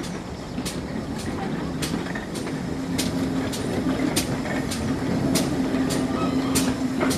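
GWR 0-6-0 steam locomotive No 3205 approaching slowly with its coaches. It makes sharp, regular beats a little under two a second over a steady low hum.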